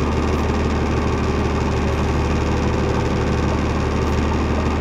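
A fishing boat's engine idling, a steady low hum that does not change.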